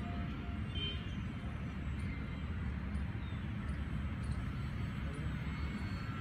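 Steady low rumble of wind on the microphone, with the faint, thin whine of a foamboard RC plane's electric motor and propeller flying overhead.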